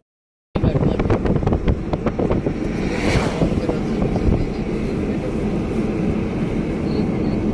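Wind buffeting the microphone over the rumble of a moving vehicle's road noise, filmed out of its side window. The sound starts after a brief dropout.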